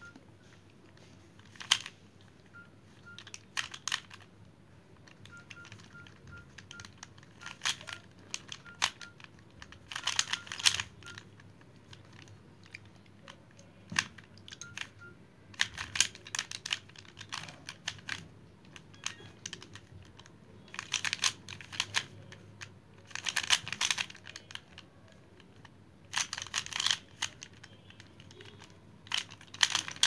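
Stickerless 3x3 Rubik's cube being turned by hand: its plastic layers click and clack in quick flurries of turns, with short pauses between flurries.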